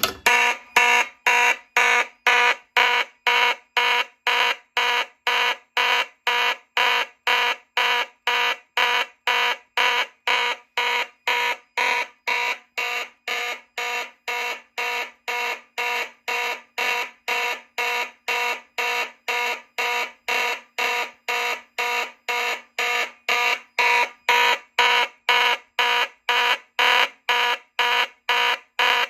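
Fire alarm horn-strobes sounding the evacuation signal in march time, an even train of loud horn blasts at about two a second: the system is in alarm after a manual pull station was pulled.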